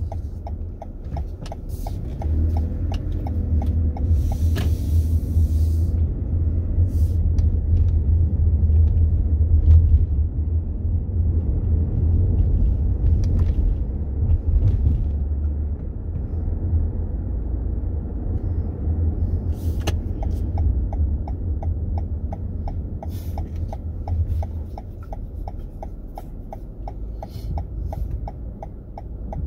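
A car's turn signal ticking evenly, then the low rumble of the engine and road heard inside the cabin as the car pulls away and drives. The turn-signal ticking starts again about two-thirds of the way in, as the rumble dies down.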